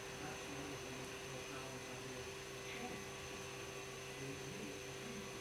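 A steady electrical hum over a faint even hiss, holding a few fixed tones without change.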